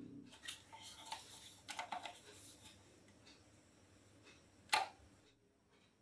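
Handling of a plastic toy dump truck on a table: a run of small crackly clicks and rustles, then one sharp plastic click near the end.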